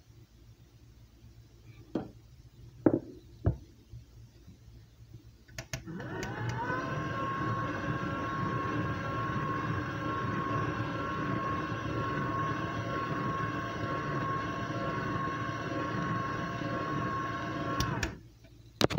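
A few knocks, then a KitchenAid stand mixer clicks on about six seconds in. Its motor whine rises briefly and settles to a steady pitch while the beater works flour into creamed butter and sugar for cake batter. It stops suddenly near the end, followed by a couple of clicks.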